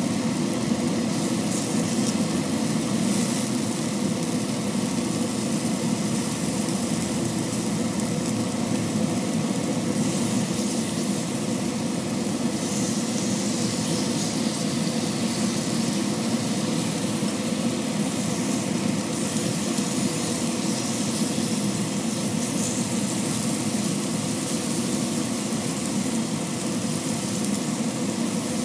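Chicken and beef sizzling on a stovetop griddle pan, over a loud, steady mechanical hum.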